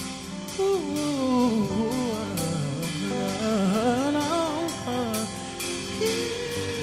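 Live gospel worship music: a band with drum kit and sustained keyboard or guitar chords under a slow, freely wavering vocal melody sung without words.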